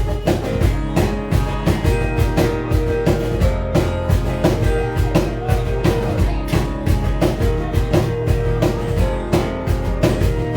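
Live rock band playing: a drum kit keeps a steady beat under held electric guitar and bass notes, with no singing.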